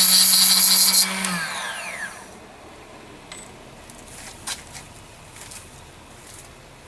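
Abrasive-wheel chop saw running with a loud grinding hiss as the wheel takes a small burr off a cut aluminium piece. About a second in it is switched off and spins down with a falling whine that fades out after another second or so. A few light clicks follow.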